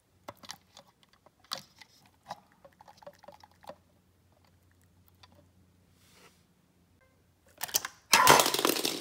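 Wet squelches and clicks of toy cars being pressed and pushed in slime in a glass bowl, a cluster of them over the first few seconds. Near the end a loud, dense rush of noise as the glass bowl is tilted and moved.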